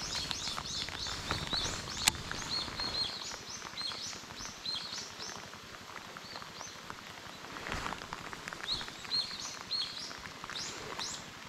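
Birds chirping in quick, repeated short notes, some sweeping upward, over a steady patter of rain, with one sharp tick about two seconds in.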